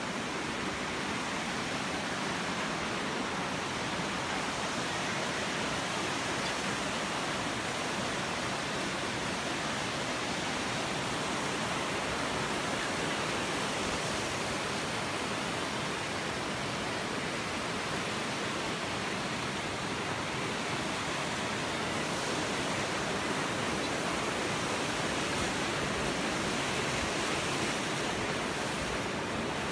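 Steady rushing of water: an even hiss that holds one level throughout.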